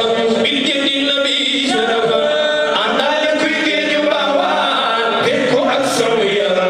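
A group of men chanting an Islamic devotional song together, amplified through microphones, in long held notes.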